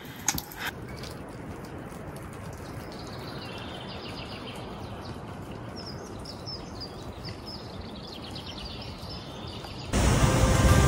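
Steady rushing of flowing water, with a bird giving a run of short, high chirps in the middle seconds. Music comes in loudly about a second before the end.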